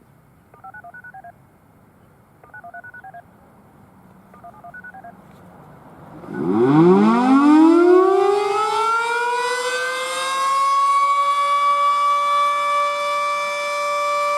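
Three short bursts of DTMF touch-tone beeps, the siren's radio activation code, then a Federal Sign & Signal Model 7B outdoor warning siren winding up from about six seconds in. Its pitch rises quickly and settles into a steady alert tone, with slight rises and falls in loudness.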